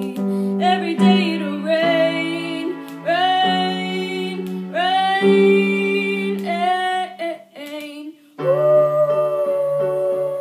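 A young girl singing long held, wordless notes over electric keyboard chords, with a brief pause about eight seconds in.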